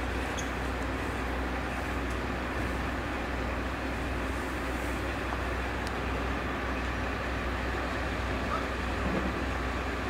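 Diesel railcars idling at rest, a steady low engine rumble.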